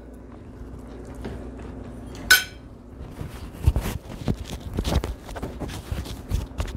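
A spoon clinks once on a ceramic plate about two seconds in. Then comes a run of rustling and low thuds as a clip-on microphone is handled against a shirt.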